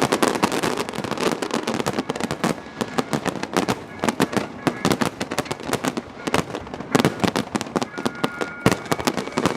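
Fireworks going off in a dense barrage of sharp cracks and bangs, many per second.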